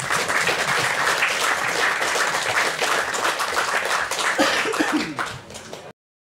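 Audience applauding, dense clapping that thins out near the end and then cuts off suddenly.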